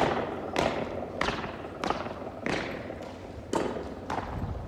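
Marching boots of a flag escort stamping on concrete in unison, a sharp stomp about every two-thirds of a second with one beat skipped partway through, each stomp echoing under a metal roof.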